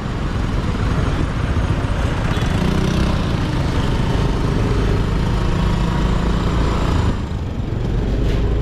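Steady road traffic noise with vehicle engines running.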